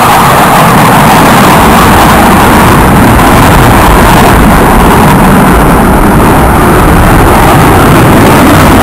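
Military jet flying overhead: loud, steady jet engine noise with a low rumble, its higher rushing part slowly easing as the jet draws away.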